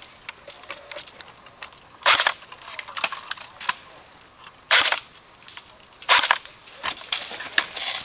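Airsoft electric rifle fire: three short bursts, each lasting a fraction of a second, about two seconds apart, with scattered sharp clicks between them.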